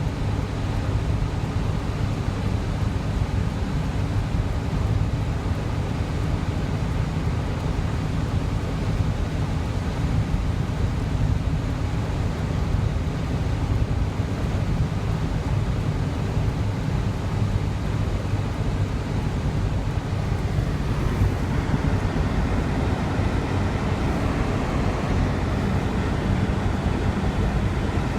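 Steady car cabin noise while driving: a low engine and road hum with tyre hiss, the hiss growing louder about twenty seconds in.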